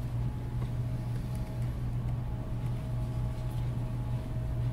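Steady low hum of background room noise, with faint steady tones above it.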